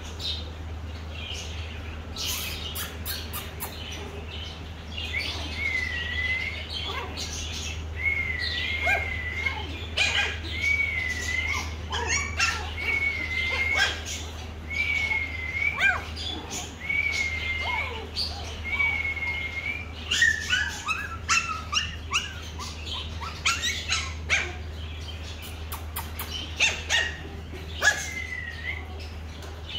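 Toy Pomeranian puppies yapping in short high-pitched barks and yelps. Through the middle of the stretch a high whistle repeats, about once every second and a half.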